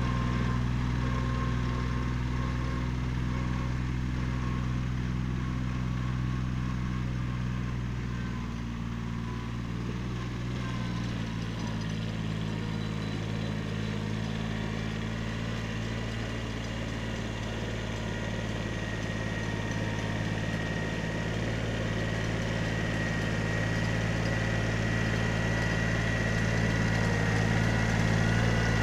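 Kubota B7100 compact tractor's three-cylinder diesel engine running steadily under the load of a drag box. It grows fainter as the tractor moves away, shifts in pitch a little before halfway, then gets louder as the tractor comes back.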